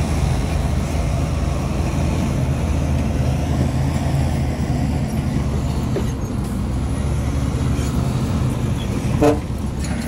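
Bulldozer's diesel engine running steadily at an even pitch, with a short vehicle horn toot about nine seconds in.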